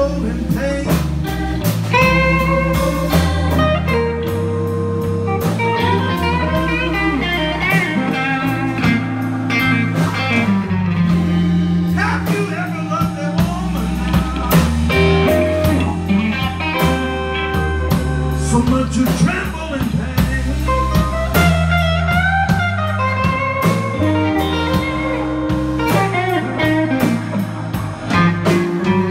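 Live blues band playing a slow blues number: electric guitars with bending notes over a drum kit.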